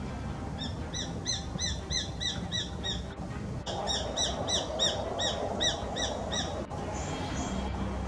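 Japanese sparrowhawk calling: two runs of rapid, evenly repeated down-slurred high notes, about four or five a second, the second run starting just under four seconds in.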